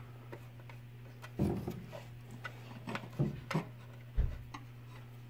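Scattered small clicks, taps and knocks as wires are worked under the screw terminals of a mercury thermostat's base, with a louder low knock about four seconds in, over a steady low hum.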